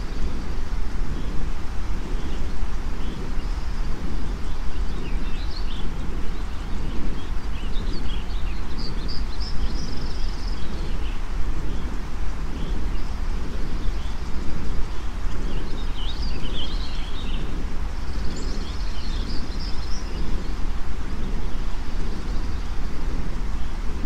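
Relaxation white-noise mix: a steady rushing noise bed, heaviest in the low end, blended with water gurgling and garden birds chirping. The birds come in several spells of high twittering, busiest a third of the way in and again past the middle.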